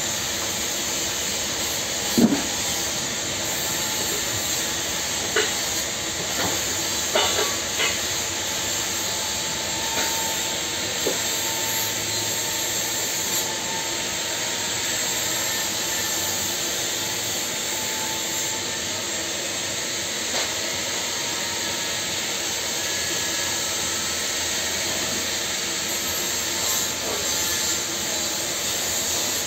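TIG (argon) welding of a small steel pipe: a steady hiss from the arc and the argon shielding gas. A few sharp knocks stand out, the loudest about two seconds in.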